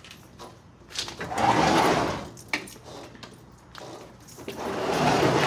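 A heavy drink vending machine scraping as it is shoved across sheet metal into a pickup truck bed: two drawn-out scrapes, one about a second in and one near the end, with a couple of sharp knocks between.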